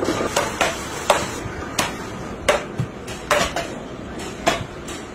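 Sharp, irregular knocks of a hand tool chopping into a round of poplar wood, roughly two strikes a second.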